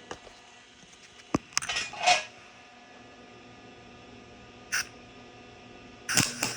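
Low steady hum with a few clicks and rustles from handling the work. Near the end the arc of a small Chicago Electric 170-amp MIG welder strikes and starts a steady crackling.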